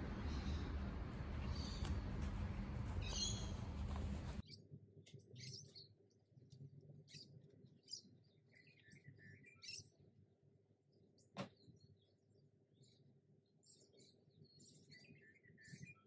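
Birds chirping intermittently over outdoor background noise. A louder, steady background noise stops abruptly about four seconds in, and a single sharp click comes near the middle.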